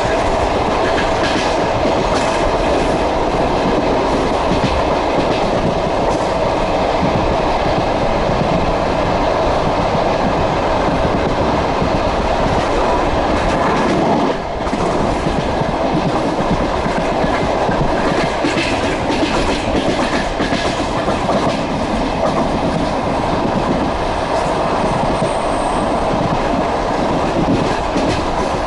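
Passenger train running at speed, heard from aboard: steady rumble of the carriage with the wheels clicking over the rail joints.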